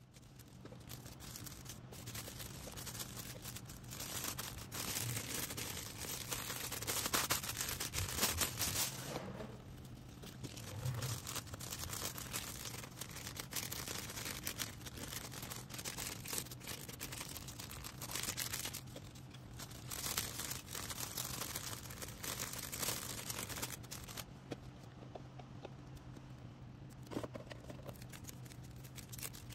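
Plastic packaging crinkling, rustling and tearing as an order is packed by hand, over a steady low hum.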